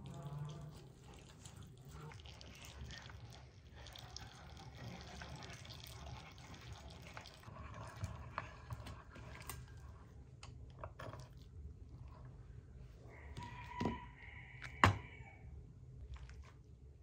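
Water trickling and dripping, with scattered light clicks and knocks. Near the end come a brief steady tone and two sharp knocks, the second the loudest sound.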